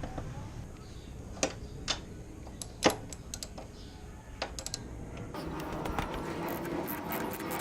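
Socket wrench and metal bolt hardware clicking and tapping as the motorcycle's engine guard bolts are loosened. There are a few separate sharp clicks, the loudest about three seconds in, and a busier run of quick ticks near the end.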